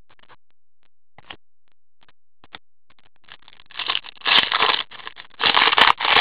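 Foil wrapper of an Upper Deck Black Diamond hockey card pack crinkling and tearing as it is pulled open by gloved hands. A few faint clicks come first; the loud crackling starts about four seconds in.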